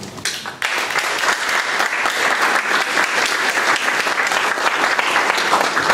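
Audience of a few dozen people applauding at the end of a talk, many hands clapping at once; it starts about half a second in and carries on steadily.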